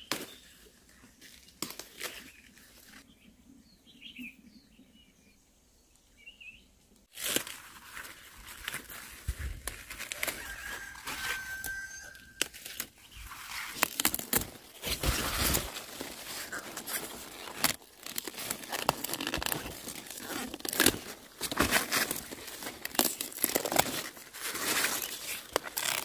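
Crisp leafy-green leaves being snapped and torn off their stalks by hand, a busy run of cracking and rustling that starts about a quarter of the way in. Before it, a quiet stretch with a few faint bird chirps.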